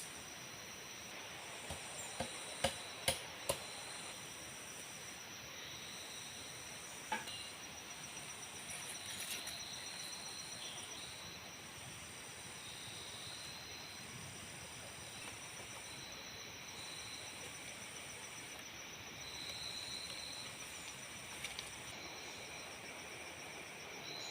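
Forest insects calling: several high, steady buzzing tones with an on-off pulsing chorus and short chirps over a soft background hiss. A few sharp knocks of wood being struck come in the first few seconds, and one more about seven seconds in.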